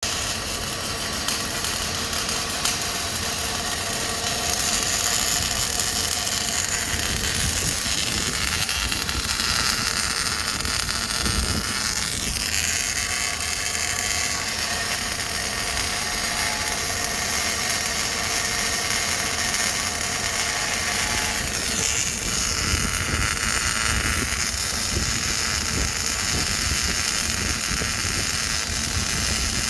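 A MIG welding arc from a Daihen Fuzzy 350 welder, crackling and hissing steadily. Its tone shifts a few times, about 4, 12 and 22 seconds in.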